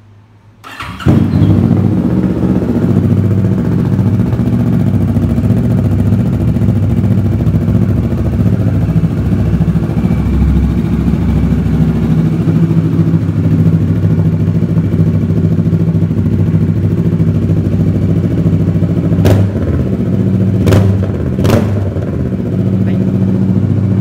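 Kawasaki Ninja 650 parallel-twin engine with a LeoVince full exhaust starting about a second in, then idling steadily for about twenty seconds. Three short sharp cracks come near the end.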